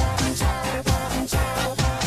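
Dance music with a steady kick drum on every beat, about two beats a second, and bright cymbal strokes over sustained synth tones.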